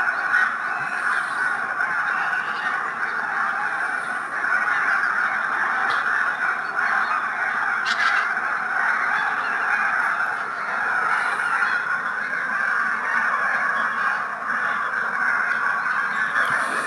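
A large flock of wild geese calling together, a continuous dense chorus of honking with no pauses.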